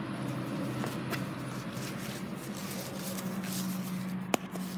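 Steady low hum inside a car cabin, with light rustling and handling noise and one sharp click about four seconds in.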